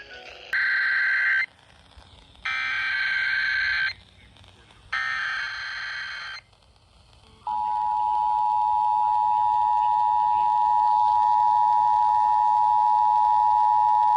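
Emergency Alert System test over FM radio: three short raspy bursts of SAME digital header data, each about a second long, then about halfway through the steady two-tone EAS attention signal (853 and 960 Hz together) comes on and holds.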